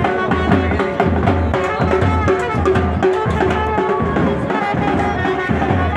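Music with a steady drum beat and a melody line carried over it.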